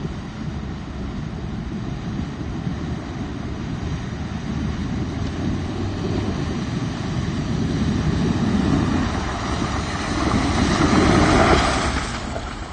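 2019 Ford F-150 pickup driving through a shallow creek, water splashing and spraying from its tires over the engine's run, growing louder as it comes up to and passes close by, then cutting off suddenly.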